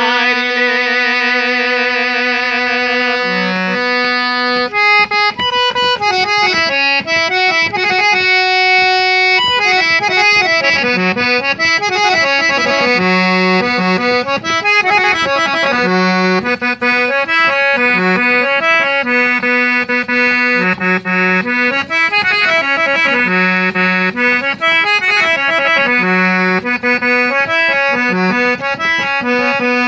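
Free-reed keyboard instrument playing a melody over a steadily held drone note. It opens on a sustained chord for about the first three seconds.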